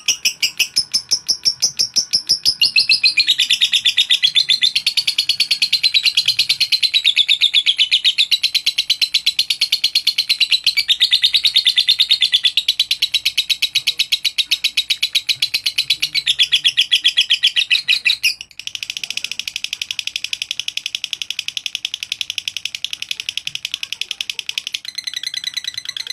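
Masked lovebird in its long, unbroken ngekek song: a fast, high chatter of many notes a second that runs on without a pause for breath. It breaks briefly and changes pattern about two-thirds of the way through.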